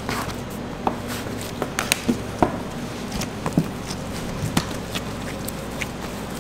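Plastic bench scraper cutting through bread dough and tapping against a stainless steel worktable, with gloved hands handling the dough: irregular sharp clicks and taps over a steady background hum.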